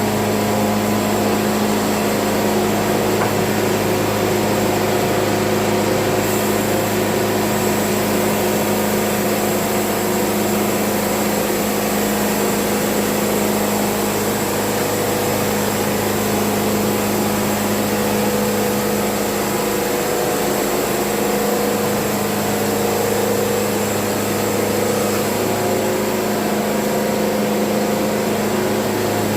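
Wood-Mizer LT70 sawmill running with a steady, unchanging machine hum.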